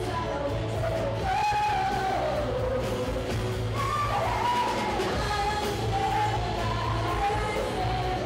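Live rock band playing a song: female lead vocals over electric and acoustic guitars, bass and drums, amplified through PA speakers in a large gymnasium.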